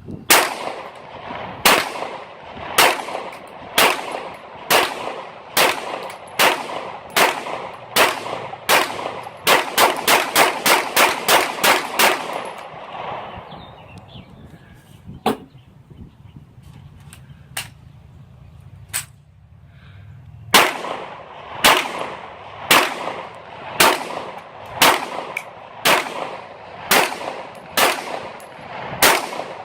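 Canik TP9SA 9mm pistol being fired: single shots about once a second, then a fast string of rapid shots, then a pause of several seconds with only a few fainter distant shots, and steady single shots again near the end.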